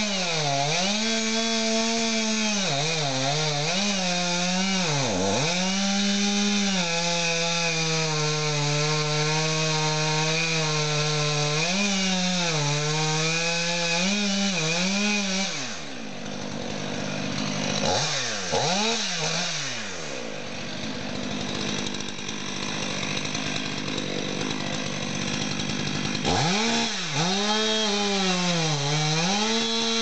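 Stihl MS 500i fuel-injected two-stroke chainsaw cutting through a log at full throttle, its pitch dipping again and again as the chain bites. About halfway through it drops to idle for about ten seconds, with a couple of quick revs, then returns to full throttle near the end.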